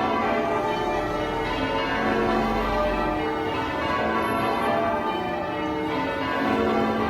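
Church tower bells in change ringing: a ring of bells struck one after another in steady succession, their ringing tones overlapping.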